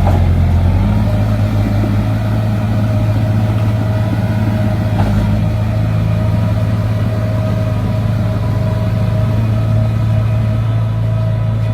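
Heavy diesel engine of earthmoving machinery running steadily: a low drone with a steady whine above it. The engine note shifts and settles in the first second, and there is a faint knock about five seconds in.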